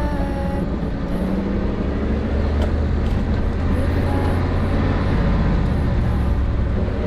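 Off-road 4x4 vehicle driving on a rough mountain dirt track, its engine running with a steady low rumble.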